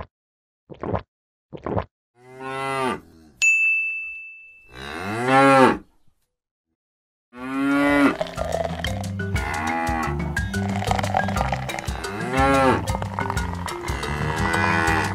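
Cow mooing three times, with a single bright ding about three and a half seconds in, after a few short clicks at the start. After a short silence, background music with a bass beat starts and more moos sound over it.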